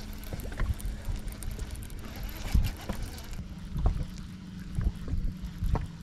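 Open-air sound aboard a fishing boat: a steady low hum under wind buffeting the microphone, with a few short knocks about two and a half, four and six seconds in.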